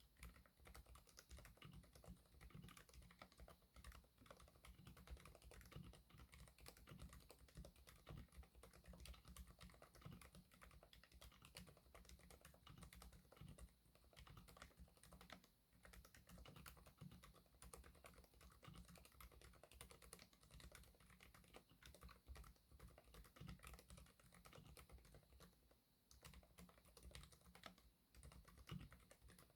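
Continuous quiet typing on a mechanical keyboard with Keychron K Pro Silent Red linear switches and OEM-profile keycaps: a steady stream of soft key presses, with short pauses about halfway through and again near the end.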